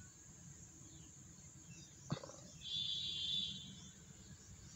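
A high, buzzy animal call about a second long, a little past the middle, over a faint steady background, with a brief click just before it.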